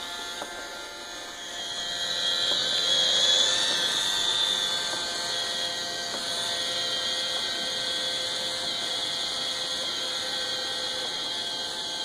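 iRobot Roomba 550 robot vacuum running on carpet: a steady whine from its brush and vacuum motors with a fan hiss, broken by occasional clunks and "hiccups" from the brush assembly. The clunking is the sign of hair and dirt packed into the brush gearbox.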